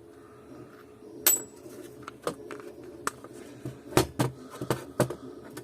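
Small metal parts of a disassembled LPG evaporator clinking and knocking as they are handled. A sharp ringing clink comes about a second in, then a run of lighter clicks and knocks.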